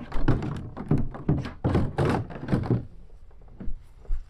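Hollow plastic kayak hull knocking and bumping as it is handled and lifted: a quick run of hollow thunks for about three seconds, then two single knocks near the end.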